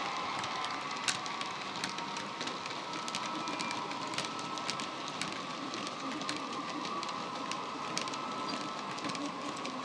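Model freight wagons rolling along the track, their metal wheels clicking irregularly over rail joints. Under them runs a steady hum of the Dapol Class 68's DCC diesel sound, played from the locomotive's pair of megabass speakers.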